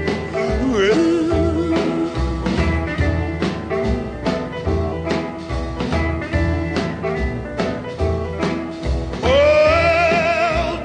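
Background music: a country-blues song with a steady beat, guitar and a singing voice, the vocal held and wavering strongly near the end.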